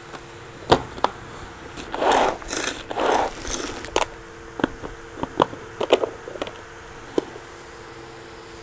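Chopped onion being scooped by hand out of a plastic food-chopper bowl: scattered plastic clicks and knocks, with two short scraping rustles a couple of seconds in.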